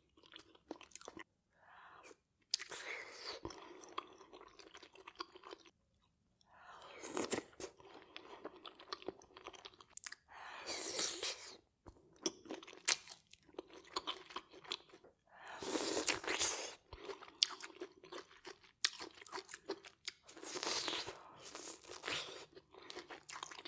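Close-miked eating sounds of a person biting into and chewing giant prawns and potato from a saucy seafood boil, coming in irregular bursts with short pauses between bites.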